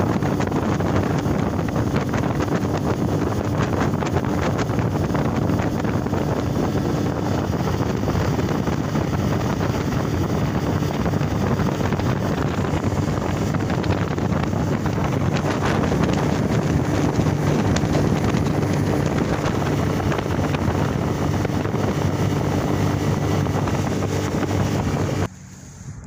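Boat motor running steadily under way, with strong wind buffeting the microphone; the sound cuts off suddenly near the end.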